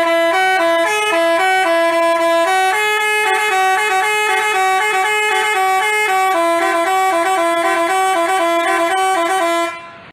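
Telolet basuri musical bus horn playing a fast melody of stepping notes, which cuts off abruptly near the end.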